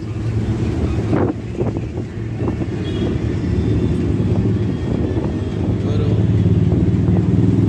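Cabin noise of a moving city bus: the engine drones steadily, with a few knocks and rattles from the body early on. The engine gets louder over the last two seconds.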